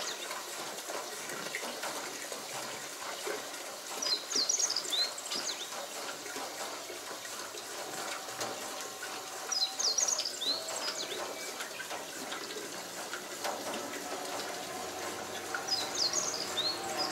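Fuel running from a hand-cranked rotary drum pump through its hose into a jerry can, a steady gushing. A bird sings a short chirping phrase about every five to six seconds, three times.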